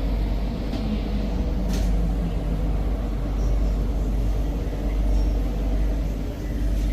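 Singapore MRT train heard from inside the carriage: a steady low rumble, with a faint falling whine over the first couple of seconds as the train slows into the station, and a single click about two seconds in.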